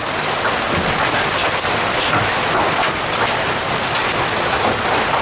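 Heavy hail, with stones up to golf-ball size, pelting down in a dense, steady clatter of many small sharp impacts.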